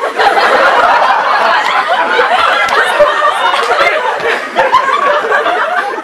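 Audience laughing loudly, many voices at once. It breaks out suddenly and eases off near the end.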